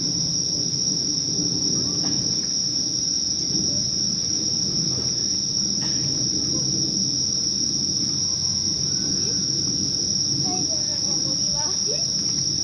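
Night insects calling in a steady, unbroken high-pitched chorus, over low steady background noise.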